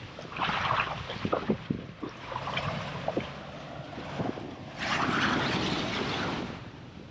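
Wind gusting across the microphone with ocean surf washing on the beach, the strongest gust about five seconds in, and a few light knocks early on.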